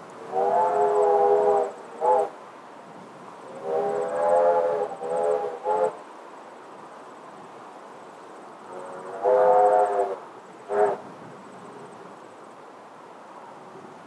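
Distant train sounding a multi-note chime whistle in three groups: a long blast and a short one, then a long blast and two short ones, then a long blast and a short one.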